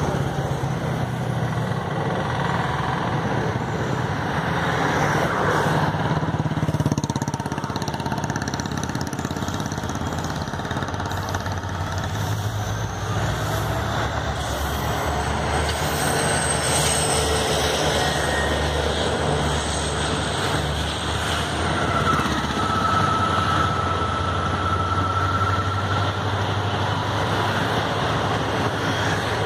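WDP4D diesel-electric locomotive with a 16-cylinder two-stroke EMD engine running steadily as it approaches and passes close by. Its passenger coaches then roll past.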